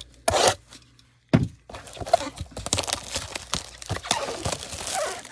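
Cardboard trading-card blaster box being opened by hand: a brief scrape, a sharp knock, then a long stretch of crackling, scraping and tearing as the box is torn open.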